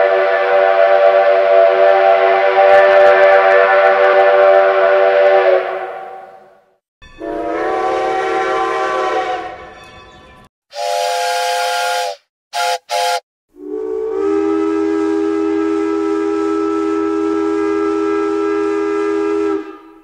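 A series of steam locomotive whistle blasts, each sounding several notes at once over a hiss of steam. First comes a long blast that tails off, then a shorter one, a brief higher-pitched one and two quick toots, and finally another long, lower blast.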